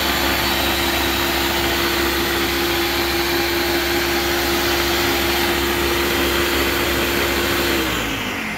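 Ninja blender motor running steadily, blending chopped cauliflower and water into a liquid, with a steady whine over the blade noise. Near the end it is switched off and the motor winds down with a falling whine.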